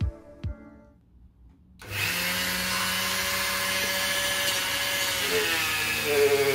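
Rotary tool with a flexible shaft starting up about two seconds in and running steadily, spinning a felt polishing wheel while a bar of green polishing compound is pressed against it to charge the wheel. Its pitch wavers near the end.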